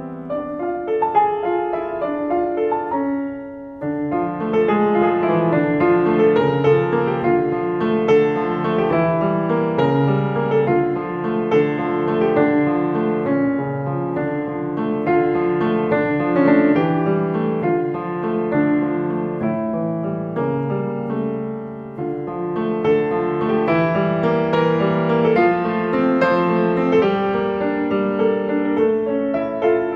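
Background piano music, a continuous flow of notes, briefly softening twice.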